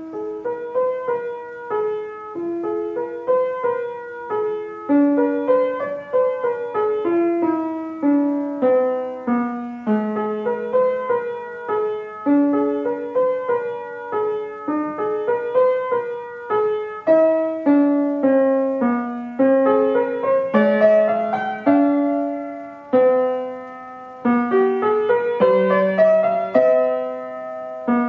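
Upright piano played in a simple Grade 1 piece: a melody of separate notes over a few lower notes, starting abruptly and going on at an even pace.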